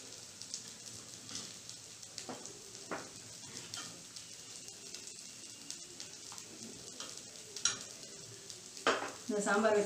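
Steel ladle stirring sambar in a steel kadai, clinking against the pan now and then over a low steady hiss, with two louder knocks near the end.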